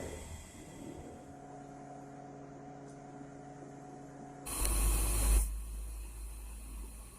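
Manual lathe's electric motor humming steadily, then a sudden loud rushing noise with a deep rumble about four and a half seconds in, lasting about a second before fading.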